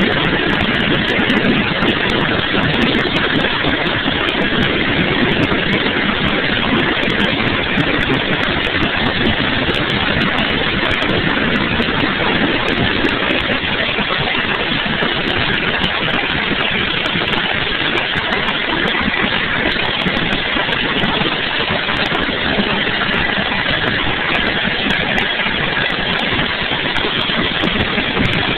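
Sikorsky UH-60 Black Hawk helicopter in flight: its twin turboshaft engines and rotor make a loud, steady din, heard from the gunner's position in the cabin.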